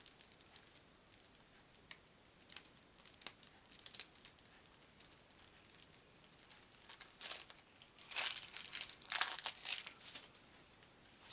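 Plastic wrapper being torn open and crinkled off a deck of UNO cards, in scattered crackles that grow louder and denser in the second half.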